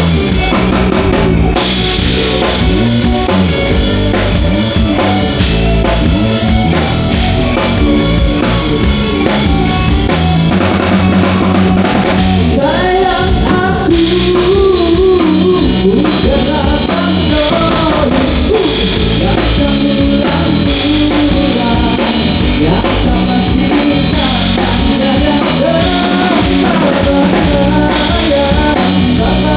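Live band playing at a sound check: drum kit and guitar, with singing at times.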